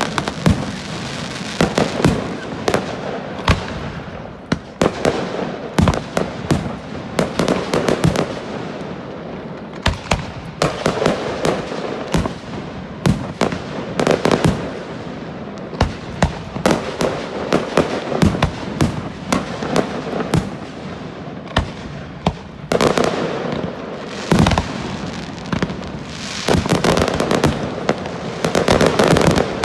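Pyrotechnic fireworks display going off: a continuous barrage of sharp bangs from bursting shells over steady crackling, growing denser in the last several seconds.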